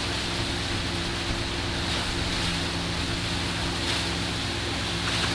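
Steady rush of churning wake water and wind, over the even drone of a Tigé surf boat's inboard engine running at towing speed.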